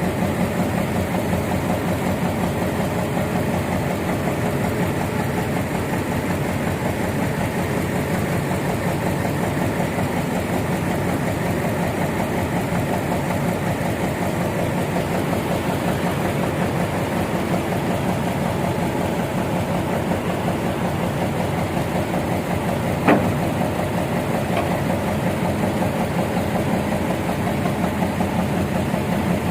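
Heavy engine running steadily at a constant speed. One sharp knock about three-quarters of the way through.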